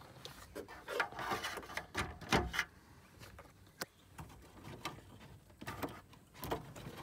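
Plastic interior dash trim being handled and pried with a plastic trim tool: scattered clicks, small knocks and rubbing. The busiest stretch comes about one to two and a half seconds in, with another short flurry near the end.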